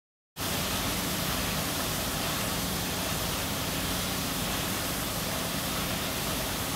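Water jetting from a pipe outlet into standing water: a steady splashing rush that starts suddenly a moment in.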